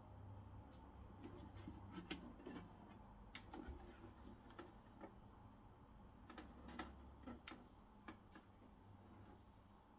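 Faint, irregular small clicks and light taps, a few every second, over a low steady hum.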